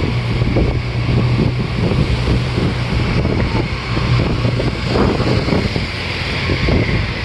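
Tour bus engine running with a steady low drone, wind buffeting the microphone.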